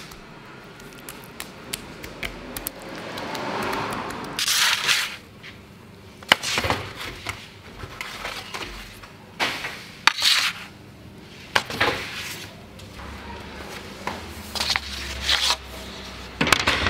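Bakery work sounds: scattered sharp knocks and clatters, with a few short scraping rushes, the loudest about halfway through.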